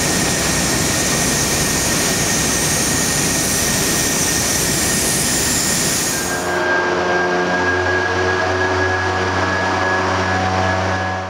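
Spray rig running with a loud, steady hiss while the floor coating is sprayed. About six and a half seconds in, the hiss gives way to a lower, steady machine hum with several held tones, which cuts off abruptly at the end.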